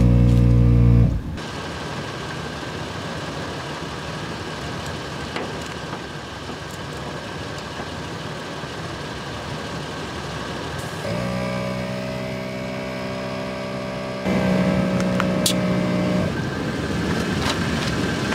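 A Toyota 4Runner driving on a dirt trail. The engine hum comes and goes between stretches of even tyre and road noise with scattered small ticks. The sound changes abruptly about a second in, again around eleven seconds, and twice more near fourteen and sixteen seconds.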